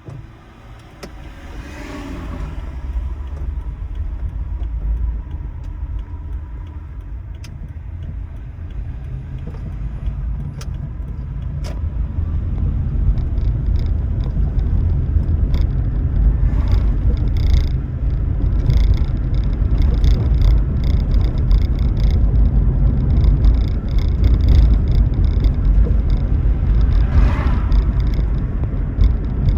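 Toyota Prius driving, with a low road and tyre rumble that grows louder over the first half as the car gathers speed. Two brief rushes of noise stand out, about two seconds in and near the end.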